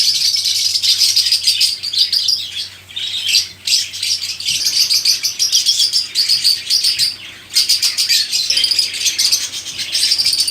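A dense chorus of many small caged birds chirping rapidly and continuously, high-pitched, with a few brief lulls.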